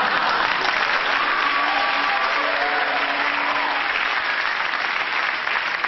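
Audience applauding steadily after a comedy sketch's punchline.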